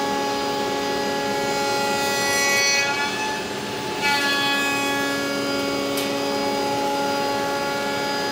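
CNC router spindle driving a flattening bit across a rough hardwood board: a steady multi-tone whine over the rasp of the cutter taking wood off. The sound eases briefly about three seconds in.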